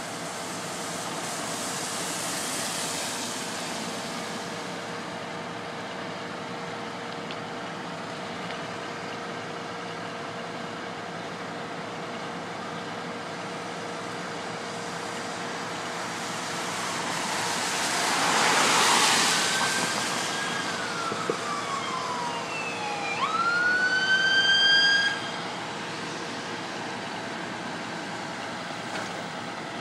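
Traffic running on a wet road, with a vehicle's tyres hissing past about two-thirds of the way in. Then a brief siren sweep falls in pitch, jumps back up and holds before cutting off suddenly.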